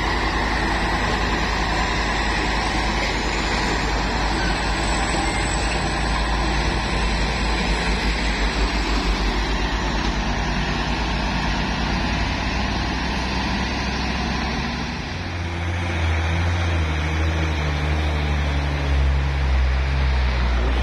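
Heavy diesel trucks working under load on a climb: a container tractor unit's engine running as it pulls away. About fifteen seconds in, a deeper, steady low engine drone from a loaded Hino cargo truck climbing.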